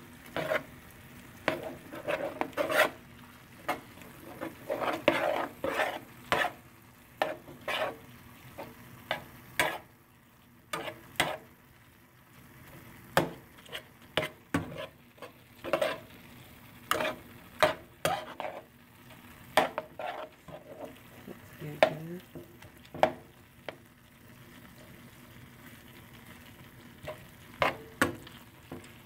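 Metal spoon stirring and scraping ground meat around a nonstick frying pan, in irregular strokes and taps against the pan, over a low sizzle of the meat frying. There are two short pauses in the stirring, one near the middle and one near the end.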